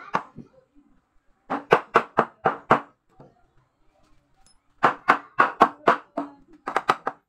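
Claw hammer driving a nail into a wooden frame: a run of about six quick blows, a pause of about two seconds, then another run of about six, ending in a few faster, lighter taps.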